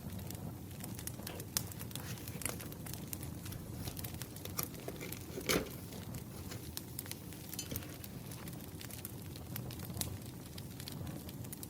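Wood fire crackling and popping over a steady low rumble, with irregular sharp snaps and one louder pop about halfway through.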